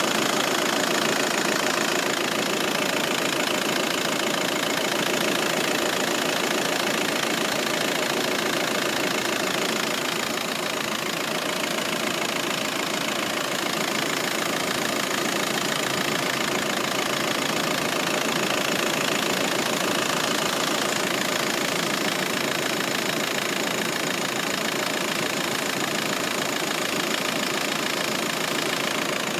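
Volkswagen Passat B6's 1.9 TDI four-cylinder turbodiesel idling steadily.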